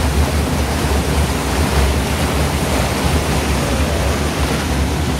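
Loud, steady rush of flowing water in a water-channel tunnel, with a low rumble underneath.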